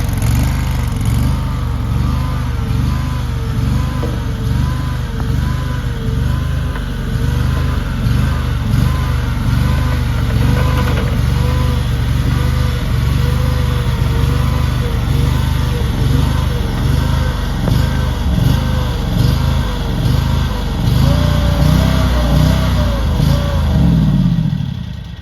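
AGT LRT23 mini skid steer loader's engine running steadily, with a warbling whine over it that rises and falls about once a second. Near the end the whine rises in pitch, then the engine is shut off and dies away.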